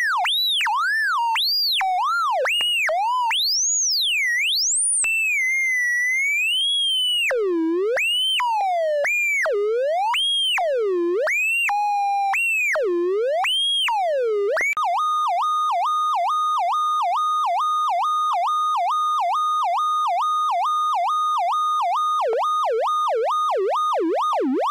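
Eurorack synthesizer oscillator whose pitch is swept by LFO sine waves mixed and rectified through the Earwig rectifying mixer: a pitched electronic tone with overtones gliding up and down in irregular swoops. About halfway it switches abruptly to a fast, regular warble of nearly three swoops a second, which dips deeper near the end as a bias knob is turned.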